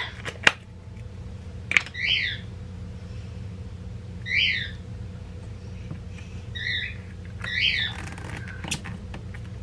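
A bird gives about five short, harsh squawking calls, each rising then falling, a second or two apart. About half a second in and again near two seconds, sharp clicks come as plastic lids are snapped onto small plastic dressing cups, over a low steady hum.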